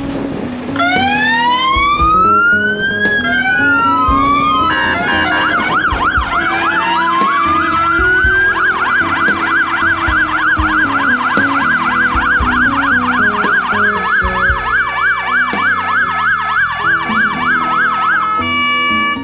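Sirens of the new Scania fire engines sounding together: overlapping slow rising-and-falling wails, switching to a fast yelp about five seconds in, then a brief run of steady tones before they stop near the end.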